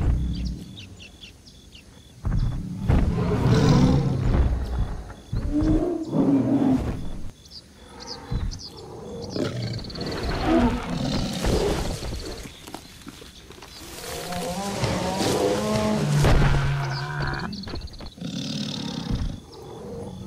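A series of big-cat-like animal roars and growls, heard as separate calls of varying length with short pauses between them.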